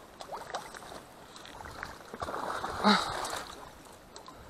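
Wading through shallow swamp water and mud: water sloshing around the legs, louder for a second or so about two to three seconds in.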